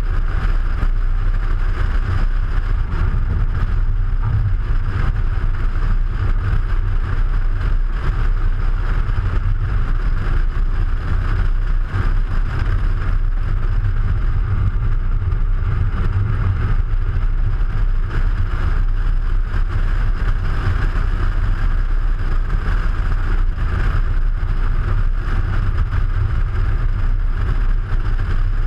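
Audi A3 driving along a road, heard from a camera mounted low on the outside of the car: a steady heavy rumble of wind on the microphone and tyre noise, with a hiss over it.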